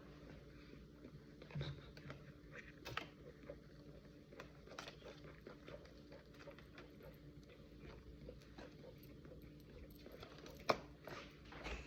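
Quiet room tone with scattered faint clicks and taps from small handling noises, and one sharper click about ten and a half seconds in.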